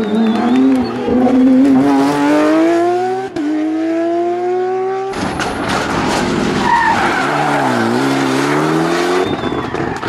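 Rally cars accelerating hard out of hairpins. First a Porsche 911 GT3's engine climbs steadily through the revs, with an upshift about three seconds in. Then a Mitsubishi Lancer Evolution X rally car is heard: its revs drop briefly and climb again as it powers out of the bend.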